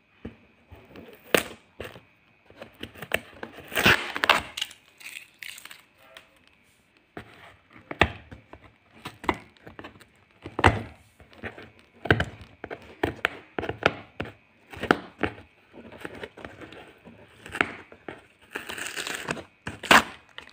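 Cardboard shipping box being torn open by hand: irregular cracks, scrapes and rips of cardboard and packing tape, with a longer tearing sound about four seconds in and another near the end.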